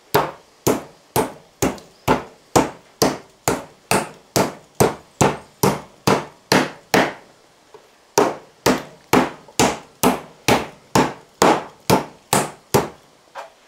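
Schnitzel meat being pounded thin and soft: a steady run of hard strikes, a bit over two a second, with a short pause about halfway through and two lighter strikes near the end.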